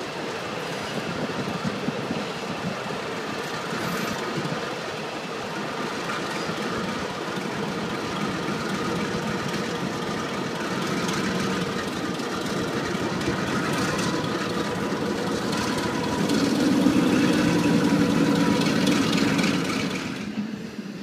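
Dongfeng diesel locomotive engines running, heard through a train window, over a steady rumble of rail noise. The low engine drone grows louder a little past the middle, as a second locomotive passes close by, and eases off near the end.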